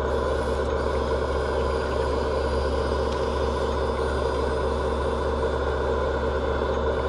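Radio-controlled hydraulic excavator working as it raises its bucket: a continuous, even, engine-like drone with a faint high whine above it.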